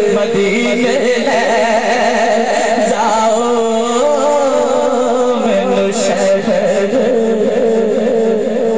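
A man's voice singing a naat in a drawn-out, ornamented style, the melody sliding and wavering, over a steady low held tone.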